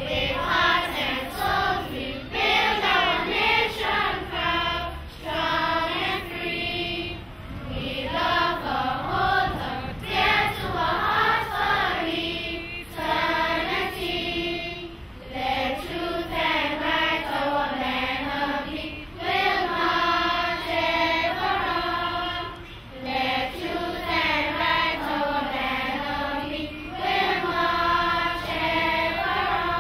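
A large group of schoolchildren singing Anguilla's national song together in a choir, in long phrases with brief pauses between them.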